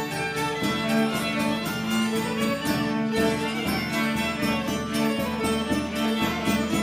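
Instrumental music led by violin or bowed strings, with steady held notes over a regular rhythmic accompaniment.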